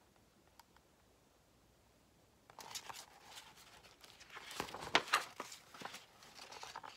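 The page of a large hardcover picture book being turned: paper rustling and crackling, starting about two and a half seconds in after a near-silent start.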